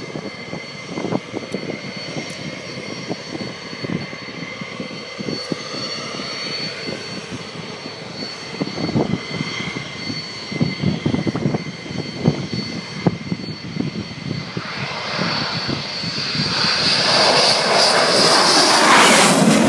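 F-15 fighter jet's twin turbofan engines on landing approach: a steady high whine that grows steadily louder, swelling to its loudest as the jet passes low and close near the end.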